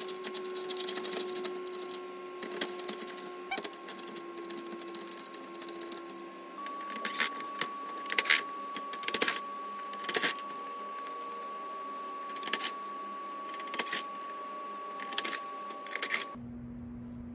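Cordless power driver running in short bursts, backing out the fasteners that hold the Toyota Safety Sense sensor to a plastic truck grille, with clicks and rattles of the plastic parts in between. A faint steady hum runs underneath, and everything cuts off abruptly near the end.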